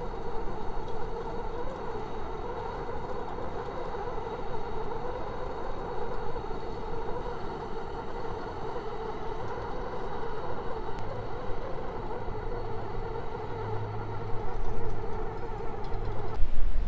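BRS portable gas heater's burner running with a steady even rush. It cuts off suddenly near the end.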